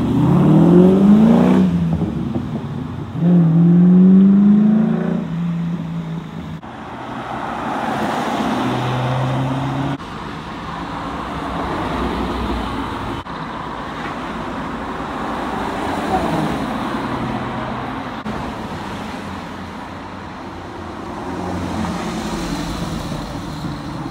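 Sports cars accelerating away and driving past on a road. First an engine revs up hard in two quick rising pulls, then a Maserati GranTurismo and other cars pass with swelling engine and tyre noise, and a Porsche 911 pulls away near the end.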